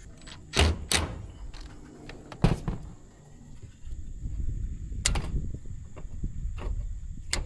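A few sharp knocks and clicks, about five spread through, over a low rumble that grows louder about four seconds in.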